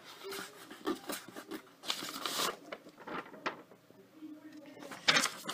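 Handling noises: light taps and clicks, and a paper sheet rustling briefly about two seconds in as it is picked up.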